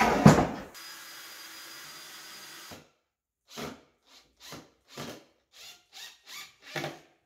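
A wooden box knocks down onto a workbench, then a cordless drill runs in about eight short bursts, roughly two a second, driving screws to fix a wooden French cleat strip to the box.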